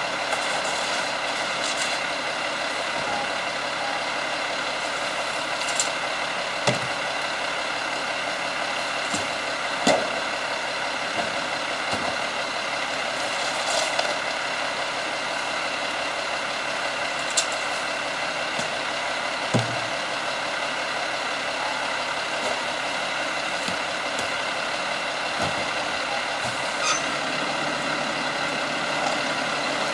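Peterbilt 320 refuse truck's diesel engine idling steadily, with scattered short knocks from plastic garbage cans being handled and tipped into its front-loader bin.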